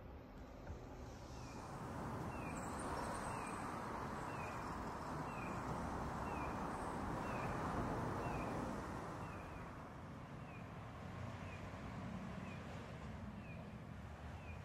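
Garden ambience: a small bird repeats a short, high chirp about once a second over a steady rushing noise that swells in the middle and eases off after about nine seconds.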